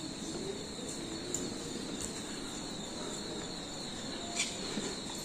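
Shopping-centre ambience: a steady background hum and murmur with a faint high whine, and one sharp click about four and a half seconds in.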